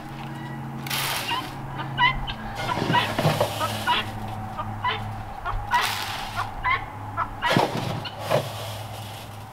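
Metal scoop digging game bird starter out of a galvanized trash can and pouring it into plastic feeders, several separate scrapes and pours. Birds give short calls in the background throughout.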